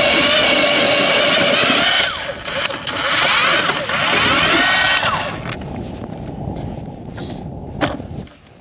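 Power ice auger drilling through the ice: a loud, steady motor whine that wavers up and down in pitch as the bit cuts, then stops about five seconds in. Two sharp knocks follow near the end.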